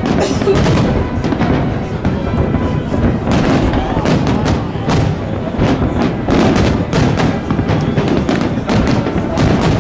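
Fireworks going off in quick succession, many overlapping bangs and crackles, with music playing underneath.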